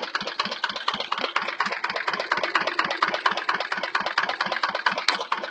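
Jiang Dong single-cylinder diesel engine running steadily on a test run, with an even, rapid beat of about nine firing strokes a second.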